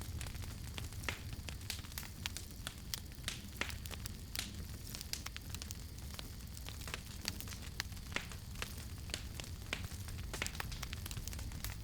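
Wood campfire crackling: irregular sharp pops and snaps over a steady low rumble of burning.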